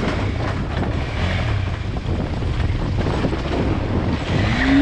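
Wind buffeting the microphone over the steady low drone of a KTM 390 Adventure's single-cylinder engine while riding, with a short rising tone near the end.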